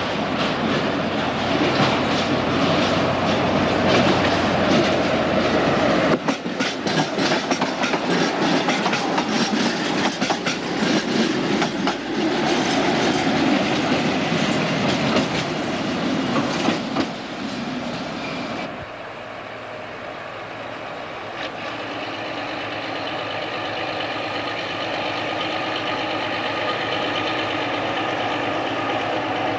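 Narrow-gauge diesel locomotive hauling a coach past at close range, its wheels clicking quickly over the rail joints. After a sudden change about two-thirds of the way in, a diesel engine runs steadily and slowly grows louder as a locomotive approaches.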